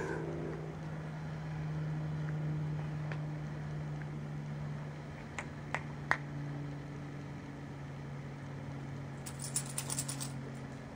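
A steady low hum, with light clicks from a small dog moving about on a paver patio: a few single clicks about halfway through and a quick cluster of thin, jingly clicks near the end.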